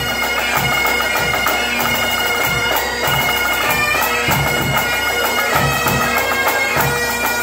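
A pipe band of Great Highland bagpipes playing a tune together: the steady drones sound under the chanter melody, with regular drum strokes beating time.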